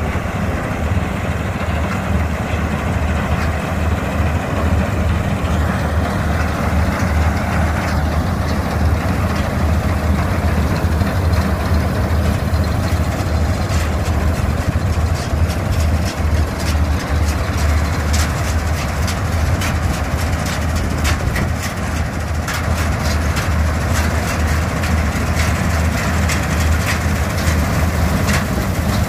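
Mahindra combine harvester's diesel engine running steadily with a deep hum as it cuts standing wheat. From about halfway through, a rapid irregular clatter joins it as the machine comes close.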